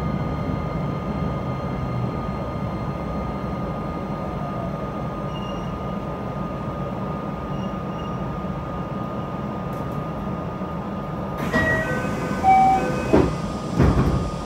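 JR West 227 series electric train standing at a station, its onboard equipment giving a steady hum with fixed whining tones. About eleven seconds in come a hiss, a short run of chime tones and several knocks, as the doors close.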